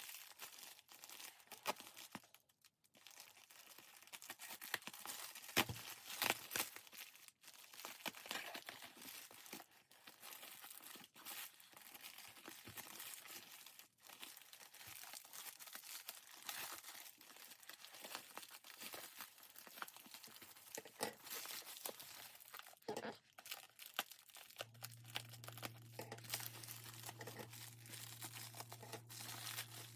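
Packaging wrap being torn open and crumpled by hand, with continuous irregular crinkling and sharp rips. A steady low hum starts near the end.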